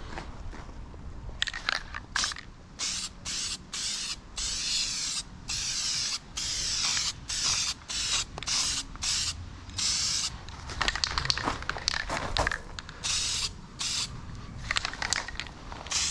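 Spray paint hissing onto an alloy wheel in repeated short bursts, about a dozen, each starting and cutting off sharply as the nozzle is pressed and released.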